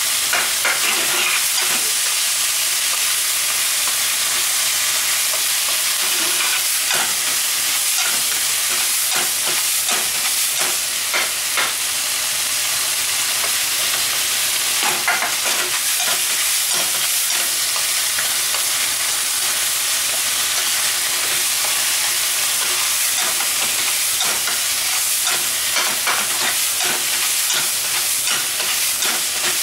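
Bitter melon, tofu and pork sizzling in a frying pan while a wooden spatula stirs them, scraping and tapping the pan many times over a steady frying hiss.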